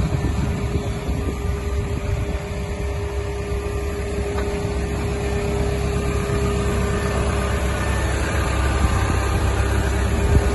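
Caterpillar excavator's diesel engine idling steadily: a low rumble with a steady hum held above it.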